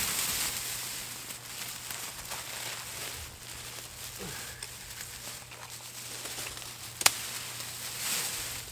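Crackly scraping and rustling of loose soil and dry stems being dug by hand with a small hand tool, with scattered small ticks and one sharp click about seven seconds in.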